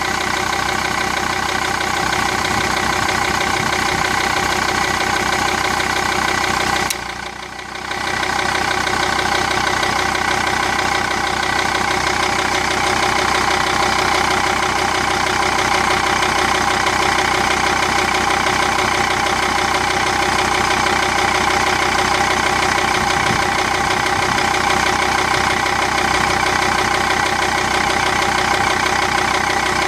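Jeep Grand Cherokee 2.7 CRD five-cylinder turbodiesel idling, with a steady whine of several high tones over the engine noise, the symptom shown of a viscous heater problem. The sound drops away briefly about seven seconds in, then comes back.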